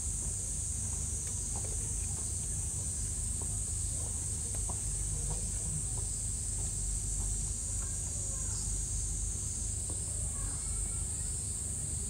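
Outdoor ambience: a steady high-pitched hiss over a low rumble, with faint scattered clicks and small chirps.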